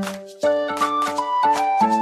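Upbeat background music: held instrument notes that change pitch over a quick, steady percussive beat.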